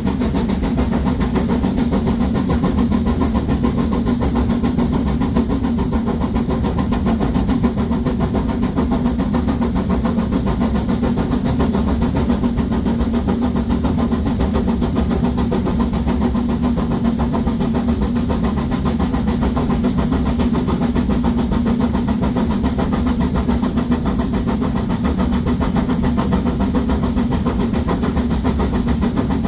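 Steam locomotive 99 7240-7, a Harz narrow-gauge 2-10-2 tank engine, working hard up a steep 1:25 grade with a heavy train, its exhaust beating in a fast, steady rhythm.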